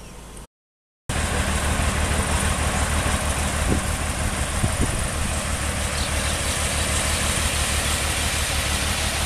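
After a brief gap of silence near the start, a truck's engine idles steadily, with a constant hiss over it.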